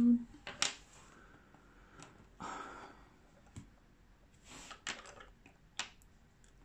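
A hummed note breaks off right at the start, then faint, scattered clicks and short rustles of coloured pencils being picked up and moved about on the table while searching for one.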